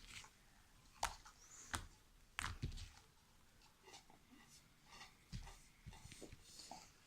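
Slime being mixed and kneaded by hand: faint, irregular sticky squelches and clicks, a few louder ones about a second in and around two and a half seconds.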